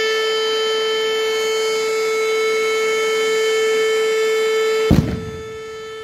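Fire engine air horn held in one long steady blast, a single unchanging pitch with no rise or fall. About five seconds in there is a sudden thump, and after it the horn sounds quieter.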